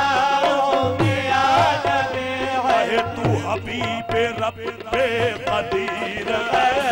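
Qawwali music: a harmonium melody over a steady hand-drum beat, continuing throughout.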